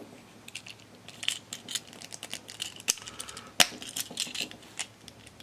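Small hard-plastic toy parts of a snap-together minipla robot clicking and tapping as they are handled and fitted together, with one sharper click about three and a half seconds in.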